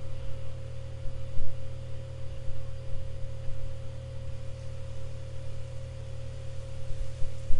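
Steady low electrical hum with a faint constant higher tone and hiss: the background noise of a desk microphone recording a computer screen session.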